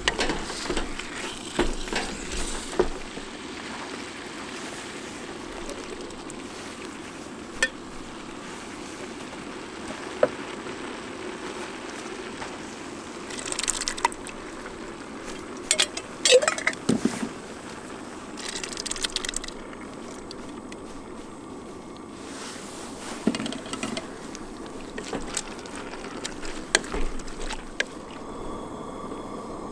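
Venison chili cooking in a steel stockpot on a camp stove: a steady hiss from the pot, with scattered clinks and scrapes of a wooden spoon against the pot and the wet splat of canned tomatoes being poured in.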